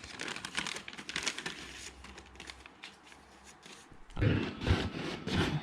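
Crinkling and rustling made up of many small sharp clicks, easing off after about two seconds, with a louder burst of low knocks a little after four seconds in.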